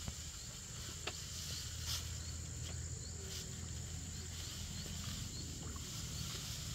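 Insects chirring in a steady, high, even drone, with a few sharp knocks scattered through it.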